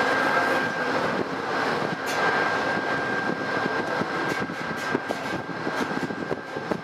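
GE Genesis diesel locomotive standing at the head of a stopped Amtrak passenger train, its engine running steadily with a thin, steady high whine over the engine's running noise.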